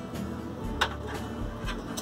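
Background music with a steady low beat. Over it, clicks from parts being handled in a sheet-metal amplifier cabinet: one sharp click just under a second in and a few fainter ones.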